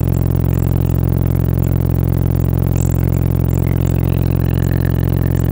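Car audio subwoofer, driven by an 800-watt amplifier, playing a loud, steady deep bass note with scattered light rattling clicks.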